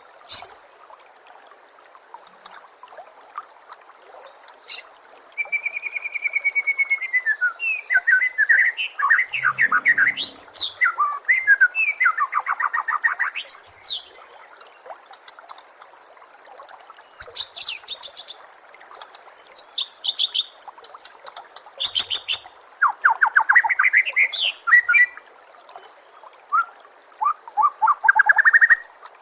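White-rumped shama (murai batu) singing in bouts of varied, loud whistled phrases and fast rattling trills, with short pauses between them. A steady trickle of running water sounds underneath.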